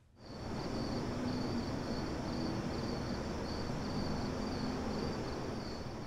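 Night ambience of crickets chirping in a steady, repeating pulse over a soft background hiss, fading in just after the start.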